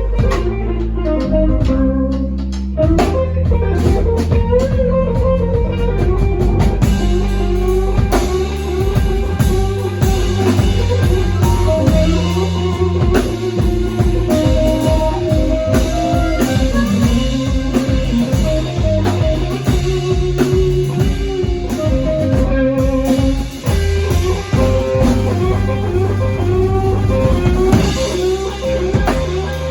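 Blues band playing a blues in C: guitar playing melodic lines over bass and a drum kit.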